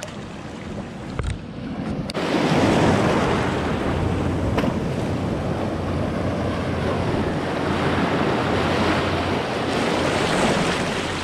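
Sea surf washing and breaking over shoreline rocks, a steady rush of water that jumps louder about two seconds in.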